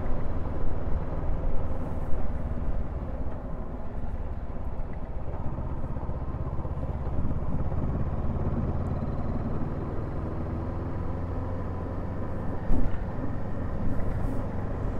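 Honda CB500F's parallel-twin engine running steadily at cruising speed, heard from the rider's seat over wind and road noise, with a brief louder thump late on.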